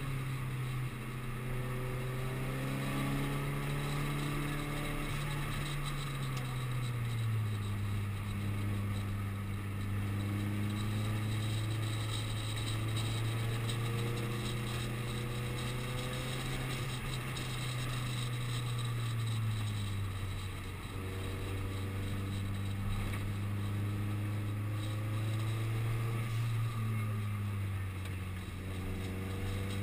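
Subaru Impreza WRX STI's turbocharged flat-four engine heard from inside the cabin, running at part throttle. Its note sags in pitch about a quarter of the way in and again two-thirds in, then climbs near the end, over a steady hiss.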